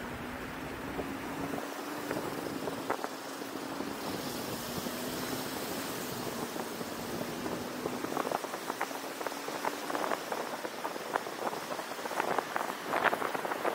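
Road noise from a car driving through city traffic: a steady rush of tyre and wind noise with a faint low hum that rises slightly in pitch. From about eight seconds in, irregular short crackles come more and more often.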